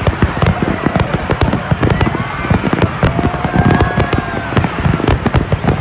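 Large fireworks display: a dense, continuous barrage of explosions, many sharp bangs a second with deep booms.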